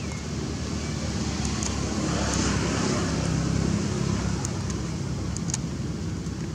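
Low rumble of a passing motor vehicle, swelling about two to four seconds in and then easing off, with a few faint sharp clicks.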